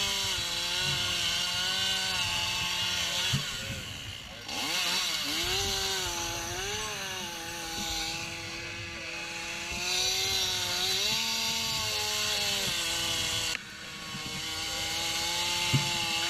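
Gas-powered saw running hard, its engine pitch dipping and rising as it works. It falls away briefly about four seconds in and again near the end.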